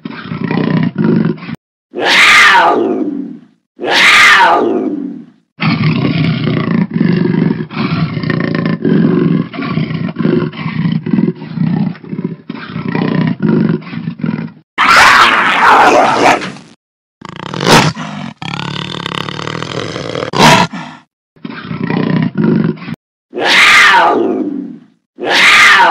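Big cat roars and growls spliced together with abrupt cuts: several short roars that fall steeply in pitch, and a long stretch of low, pulsing growling in the middle, with a loud roar after it.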